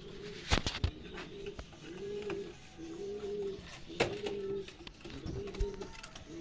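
Domestic pigeons cooing in a run of low, repeated phrases, about one a second. Two sharp knocks, one about half a second in and one about four seconds in, are louder than the cooing.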